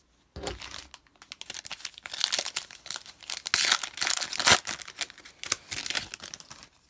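Foil trading-card pack wrapper torn open and crinkled by hand, a run of irregular crackling rustles.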